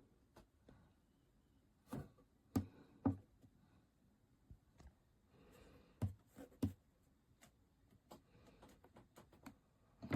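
Handling noise: a few sharp taps and knocks, the loudest in two clusters about two to three seconds in and about six seconds in, with a brief rustle and faint clicks between.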